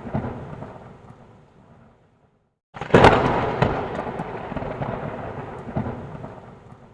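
Thunder: the rumble of a previous clap fades out into a brief silence, then a sharp, loud thunderclap about three seconds in rolls on and slowly dies away.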